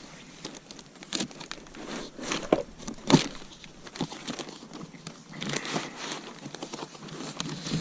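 Packaging rustling and crinkling, with scattered knocks, as parts are unpacked from a box. The loudest knock comes about three seconds in.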